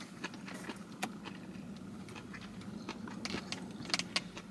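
Faint scattered clicks and light scrapes of a plastic fork in a plastic takeout bowl, with quiet chewing, over a low steady hum.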